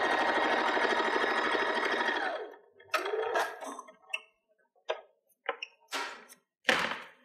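Janome electric sewing machine stitching through cotton at a steady speed, stopping about two and a half seconds in. After it, a handful of short clicks and rustles as the fabric is handled and drawn out of the machine.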